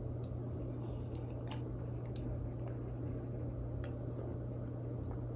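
Faint wet mouth sounds and a few soft clicks from sipping and swallowing apple juice from a glass, over a steady low electrical hum.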